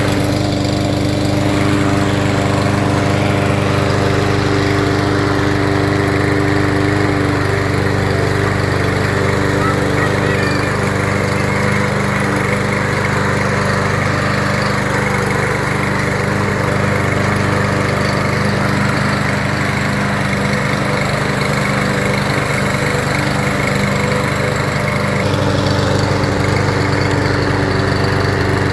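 Gas walk-behind lawn mower, a Craftsman M260, running steadily at a constant engine speed. Its tone shifts a little near the end.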